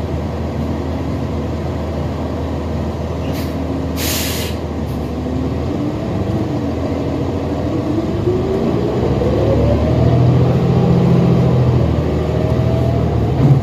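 New Flyer XD60 Xcelsior articulated diesel bus heard from inside the cabin. The engine hums steadily, and there is a short air-brake hiss about four seconds in. Then a whine rises in pitch and the drivetrain grows louder as the bus pulls away and accelerates.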